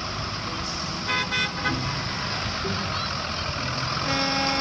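Horn toots: two short toots about a second in and a longer toot near the end, over a steady background hiss.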